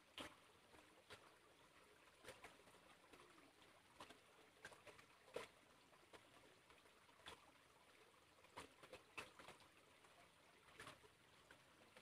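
Near silence, with faint scattered clicks and ticks about every second or two.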